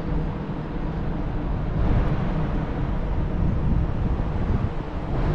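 Wind rushing and buffeting on the microphone on a ferry's open deck, over a steady low rumble from the ship.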